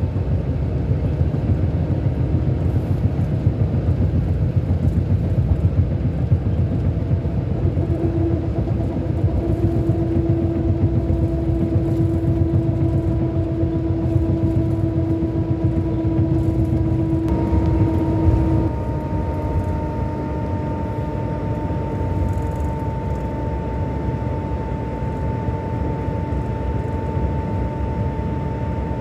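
Scania K-400 Euro 5 inline-six diesel engine of a double-decker coach running with a steady rumble and a whine. About two-thirds through, the pitch of the whine shifts and the sound settles a little quieter.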